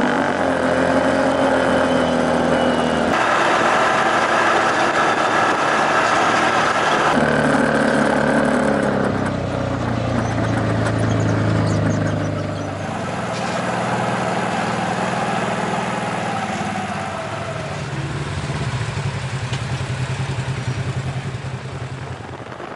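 The engine of a side-by-side off-road vehicle running while driving a dirt trail, heard from on board over a steady rushing of tyre and wind noise. Its pitch shifts several times as the engine speed changes, and it is somewhat quieter in the second half.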